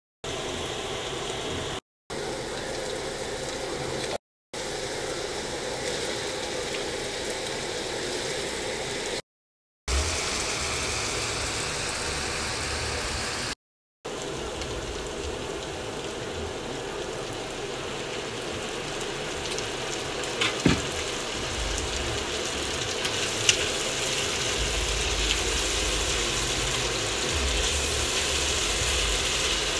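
Food sizzling in oil in a frying pan: diced onion, garlic and ginger, then chunks of chicken, with a spatula stirring near the end. The sizzle breaks off briefly at several cuts, and two sharp clicks come in the second half.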